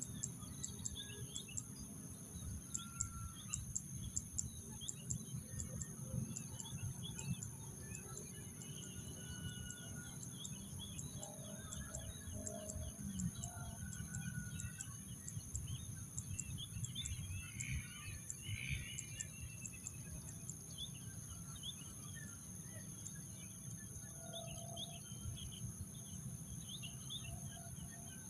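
Birds chirping in short scattered calls over a steady high-pitched insect drone, with a low rumble underneath.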